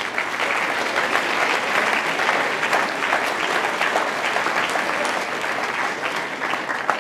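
Audience applauding: dense, steady clapping that swells in the first second and eases slightly near the end.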